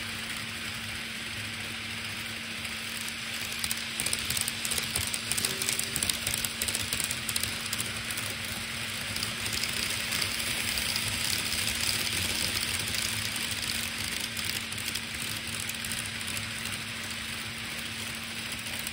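Electric model trains running on the layout's track: a steady hum with a rattling, clicking rush of wheels over rail joints and points. It grows louder and busier after a few seconds as a train passes close by, then eases off.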